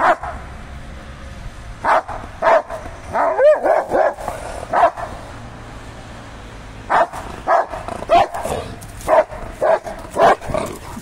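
A Rottweiler barking repeatedly, head raised, in two volleys of short barks with a pause of about two seconds between them, and a drawn-out rising-and-falling yelp about three and a half seconds in. Excited barking up at a cat it wants to play with.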